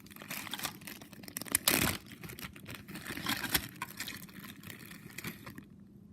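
Newspaper packing rustling and crinkling as it is handled and pulled away from the contents of a package, with a louder burst just before two seconds in; it stops about five and a half seconds in.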